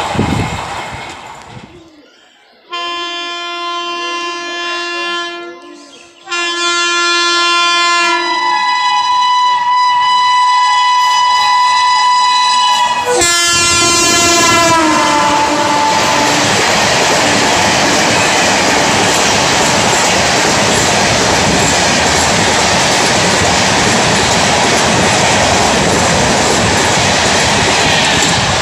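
An electric locomotive sounds its horn three times as it approaches at speed: a blast, a long blast and a third that slides down in pitch as the engine passes. Then the Shatabdi's LHB coaches rush past at about 112 km/h with a loud, steady roar of wheels on rail.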